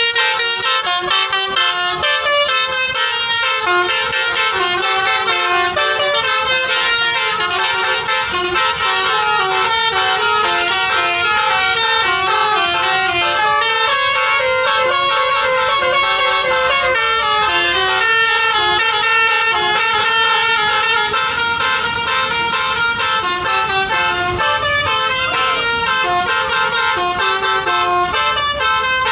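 Bus 'basuri' telolet horn, a multi-tone musical air horn, playing a melody of quick stepped notes, loud and without a break.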